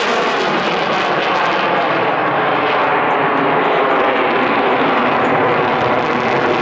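Fighter jet flying a display overhead: a loud, steady rushing engine noise.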